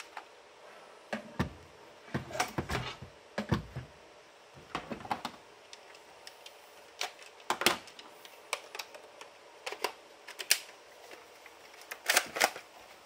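Irregular clicks and clacks of a toy bolt-action gel blaster (Gang Jiang M24) being handled and worked by hand, in short clusters with a few louder knocks.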